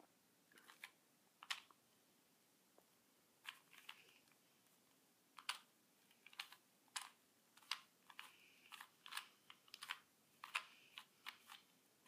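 A small 2x2 plastic Rubik's cube being twisted by hand: sharp, irregular clicks of the layers turning, a few at first and coming quicker from about halfway through.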